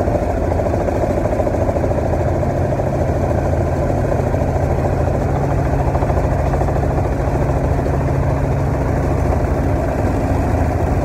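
Helicopter cabin noise in flight: the engine and rotor make a loud, steady drone with a constant low hum under a dense rushing noise.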